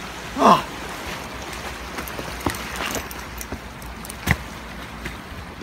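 Steady wash of rough sea and wind. A short falling vocal sound comes about half a second in, and a sharp knock about four seconds in.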